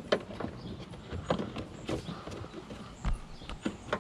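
Irregular clicks and knocks of hands and a tool working plastic and metal tail-light fastenings loose.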